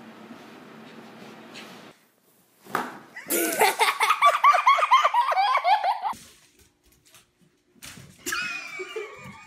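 A person laughing hard and loud, in quick repeated high-pitched peals, for about three seconds. Near the end a thin, high whining sound begins.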